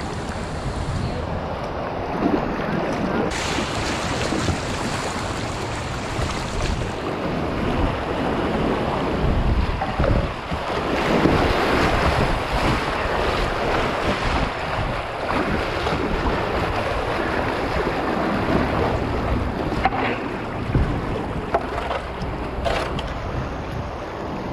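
Rushing whitewater of a class II river channel around a kayak, with splashing paddle strokes and wind on a GoPro's microphone. The water gets louder about ten seconds in, through a stretch of rapids, and there are a few sharp splashes near the end.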